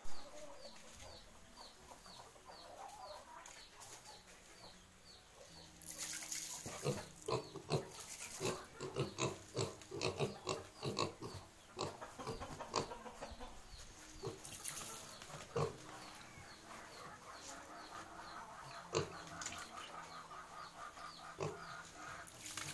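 Two hungry piglets grunting and snuffling as they nose around, with a dense run of quick grunts about a quarter of the way in and scattered ones after. A small high chirp repeats about twice a second behind them.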